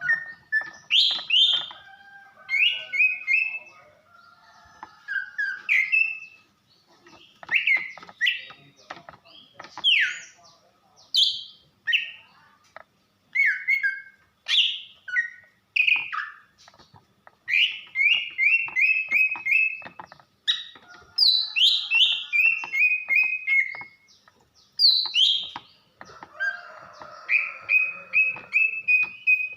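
Female cucak ijo (greater green leafbird) singing a busy, varied song of short whistles and chirps. Several quick runs of repeated notes step down in pitch, with short pauses between phrases. This is a lure song of the kind used to rouse a male into singing.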